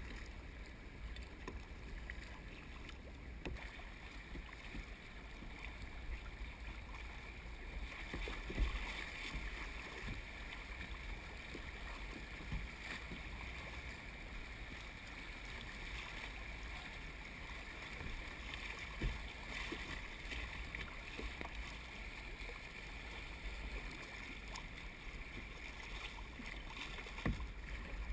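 Shallow river water rushing and rippling over a gravel bed around a plastic sit-on-top kayak, with a few short splashes or knocks from the paddle, one about a third of the way in and others later.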